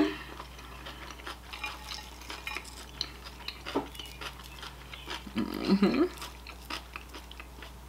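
Scattered light clicks and taps of tableware and food being handled at a table, as a fried shrimp is picked up off a plate and dipped into a glass bowl of cocktail sauce.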